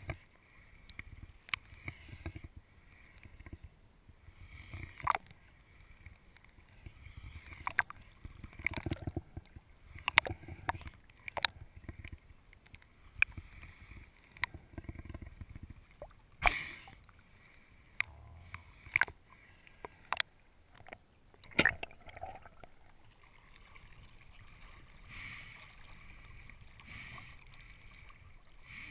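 Muffled underwater sound heard through a GoPro's waterproof housing: a low rush of water from the diver's movement, broken by sharp, irregular clicks and knocks. Near the end it gives way to a steadier wash of water as the camera comes up to the surface.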